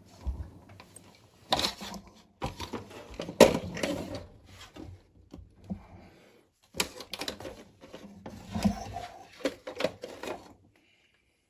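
Irregular clicks and knocks of hands handling a Casio WK-3800 keyboard and plugging in its power adapter for a test.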